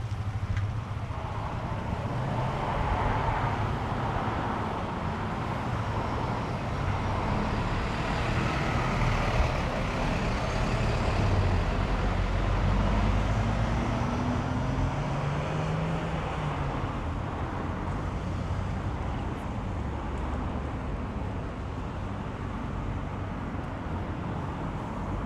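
Road traffic: a motor vehicle's engine passing, its pitch rising as it accelerates about halfway through, over a steady traffic rumble and wind noise on the microphone.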